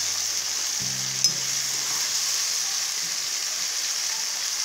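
Cauliflower florets sizzling and frying in a nonstick wok with meat and ghee, no water added, as a spatula stirs them round the pan. A single sharp click about a second in.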